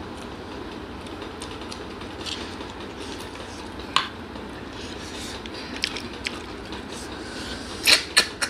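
Close-miked eating by hand: chewing with scattered sharp mouth and dish clicks over steady background noise. There is a sharp click about four seconds in and two louder ones near the end.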